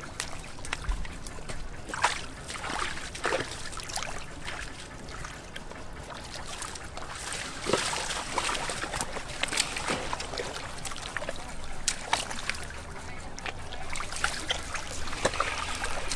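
Shallow swamp water splashing and sloshing in short irregular bursts, with trickling between them.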